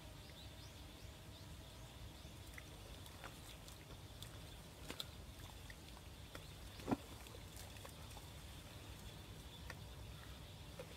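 Thick mud squelching and popping faintly as a person shifts, kneels and stands up in it, with one louder squelch about seven seconds in.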